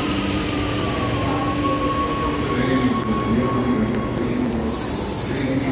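Metro train pulling into the station and braking alongside the platform, its wheels and brakes giving a steady squealing whine that sags slightly in pitch. A short hiss of air comes about five seconds in.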